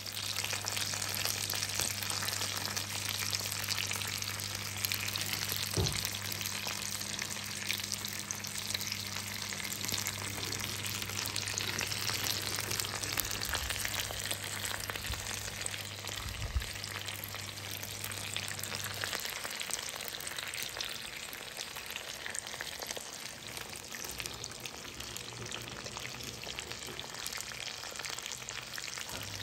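Pork loin chops frying in hot oil in a pan: a steady sizzle with fine crackling spatter. A low hum underneath stops about two-thirds of the way through.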